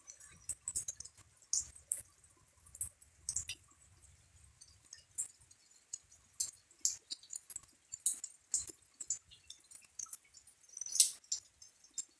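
Light, fine rain: scattered drops landing close by as irregular ticks of varying loudness, a few each second, with one louder tick near the end.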